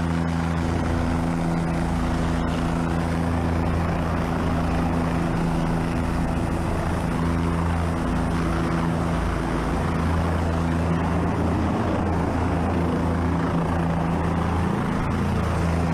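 Rescue helicopter hovering close overhead: steady, loud rotor and engine noise with a constant low hum.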